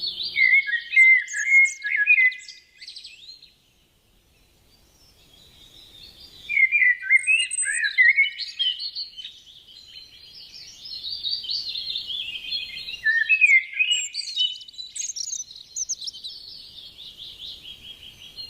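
Birds singing in rapid, varied chirps and trills, with a pause of about two seconds a few seconds in before the song picks up again.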